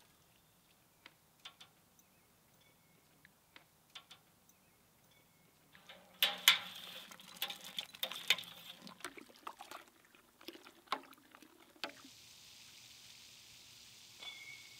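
Wort splashing and sloshing in a stainless brew kettle as a copper immersion chiller is worked in it, with sharp clinks of metal. It starts with a few scattered light clicks, turns busy for several seconds from about six seconds in, and stops abruptly, giving way to a steady low hiss.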